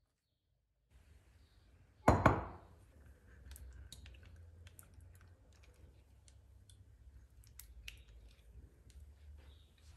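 After a second of silence, a single loud knock of glass on glass comes about two seconds in. Then a silicone spatula scrapes yogurt out of a small glass container into a glass bowl, with light taps and clinks against the glass.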